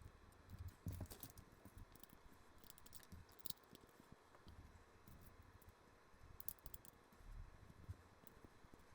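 Plastic LEGO pieces being handled and pressed together: scattered small clicks, bunched about a second in, around three seconds in and again near six and a half seconds.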